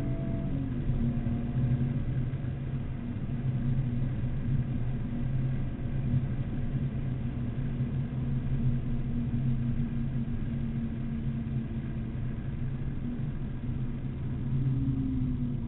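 BMW Z4 M Coupe's 3.2-litre straight-six heard from inside the cabin under way: the pitch drops at the very start as it shifts up, then the engine runs at steady revs, and the pitch falls again near the end as the revs come down.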